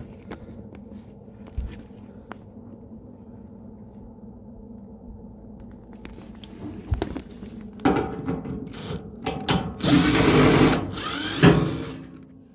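Power drill running briefly about ten seconds in, among knocks and clatter of handling parts behind the dryer. A low steady hum fills the first several seconds.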